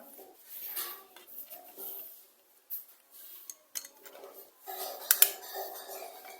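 Small clicks and taps of metal tools and plastic phone parts being handled, a pair of sharper clicks about five seconds in.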